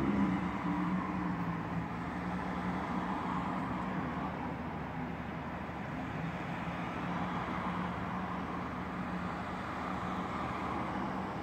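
Car engine idling steadily, heard from inside the cabin while stopped at a light.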